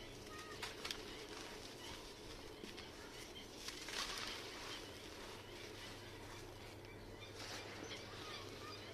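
Red sand clumps crumbling: scattered faint crackles and a short, louder crunch about four seconds in. Faint bird chirps behind.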